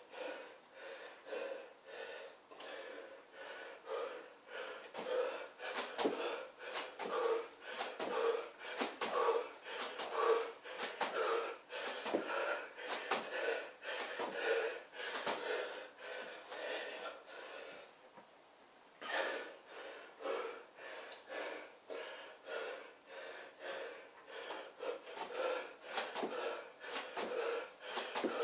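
A man breathing hard and rhythmically, about once a second, as he does jumping split lunges, with sharp thuds of his trainers landing on a floor mat at each leg switch. There is a brief pause about two-thirds of the way through.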